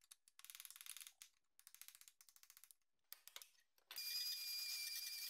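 Three short stretches of rapid metallic clicking, then about four seconds in a belt file sander starts up on the car's floor pan with a steady hiss and a high whine.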